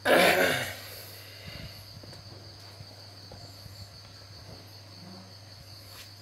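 A short loud rustling noise right at the start, then a quiet steady background with a faint high-pitched whine and a low hum. No engine is running.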